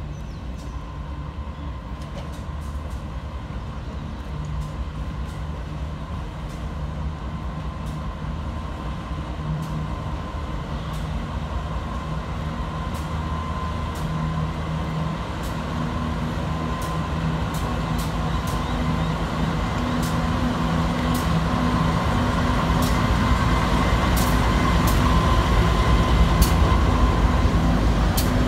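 Two diesel locomotives hauling a freight train run slowly past, their engines growing steadily louder as they come close. A steady whine sounds throughout, and sharp clicks come more and more often through the second half.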